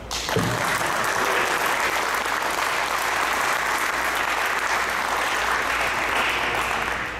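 Applause from a clapping crowd, starting abruptly and holding steady, then tapering off near the end.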